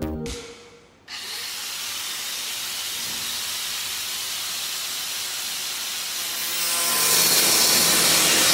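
A power tool running steadily while cutting or grinding workpiece material, starting about a second in and getting louder from about six and a half seconds in.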